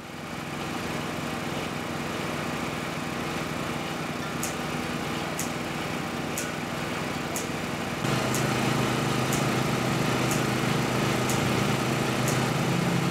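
Portable generator running steadily, a small engine hum that gets louder about two-thirds of the way through. A faint high tick repeats about once a second.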